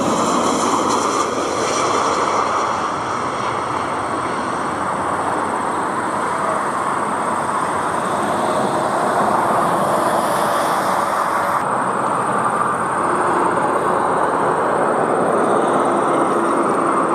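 Steady jet engine noise from narrow-body airliners: a Boeing 737, then, after an abrupt cut about two-thirds of the way through, an Airbus A321.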